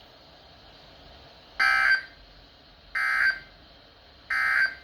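Three short bursts of Emergency Alert System SAME digital data tones, about a second apart. These are the end-of-message signal that closes a NOAA Weather Radio warning.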